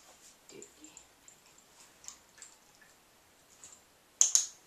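A dog-training clicker sounding once near the end, a sharp double click as it is pressed and released. The click marks for the dog that a treat comes right after, conditioning him to the clicker.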